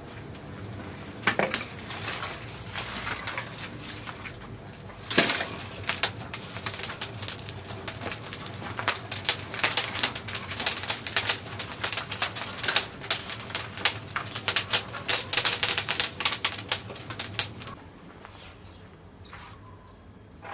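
Dry twigs and branches crackling and popping as they catch fire in a clay tandoor, with the snap of branches being broken and pushed in. There is one sharp crack about five seconds in, and the crackle grows dense and rapid before cutting off near the end.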